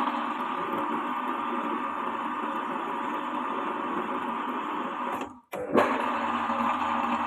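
Metal lathe running with a steady whirring hum. The sound cuts out about five seconds in and starts again half a second later.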